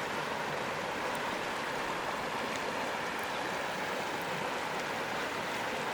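Mountain forest creek flowing, a steady even rush of water.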